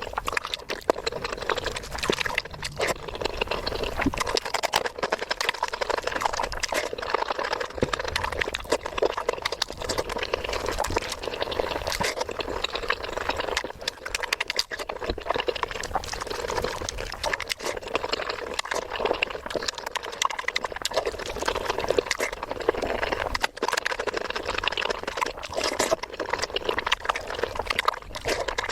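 Close-miked wet eating sounds: continuous chewing and slurping, dense with small crackles and mouth clicks.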